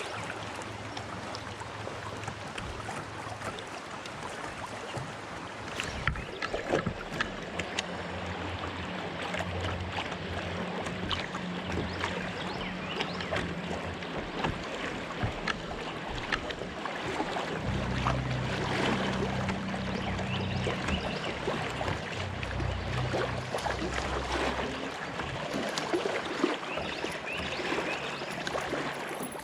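Moving river water around a kayak, with frequent small knocks and clicks from the boat and gear.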